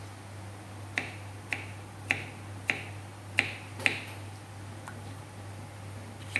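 Knife chopping on a cutting board: six sharp knocks about half a second apart, the later ones louder.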